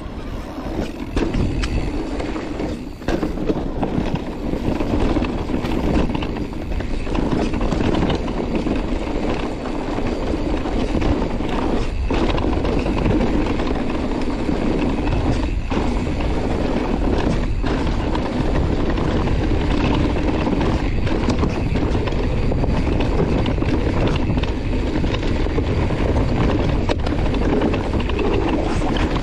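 Mountain bike ridden fast over dirt and grass trail. Tyres rumble steadily and wind rushes over the microphone, with a few brief dips in the noise.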